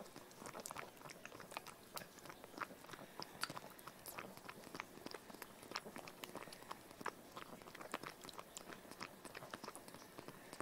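Baby cinnamon capuchin monkey suckling on a bottle nipple: faint, quick wet sucking clicks, several a second, in an uneven rhythm.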